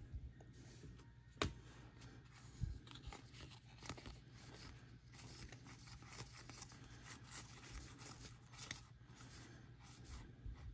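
Faint rustling and scattered clicks of baseball trading cards being slid and flipped through by hand, with a sharper tick about a second and a half in.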